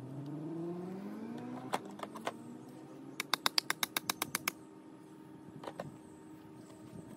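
A motor vehicle's engine accelerating, its pitch rising over the first second and a half, over a steady low hum. Then a few separate sharp clicks, followed about three seconds in by a quick run of about a dozen clicks at roughly nine a second.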